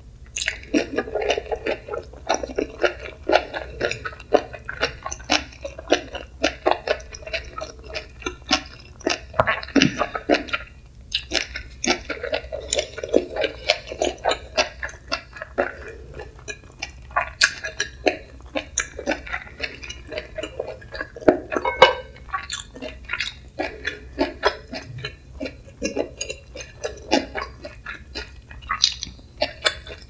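Close-miked chewing of chewy spicy stir-fried webfoot octopus, made up of many quick wet clicks and squishes from the mouth.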